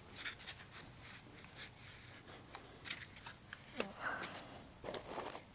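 Faint scattered clicks and scrapes of 16-gauge steel wire being twisted tight by hand around a sapling's padded butt end, with a couple of brief rustles about four and five seconds in.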